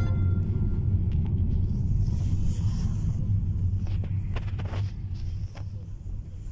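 Steady low road rumble inside a moving car's cabin, easing off near the end.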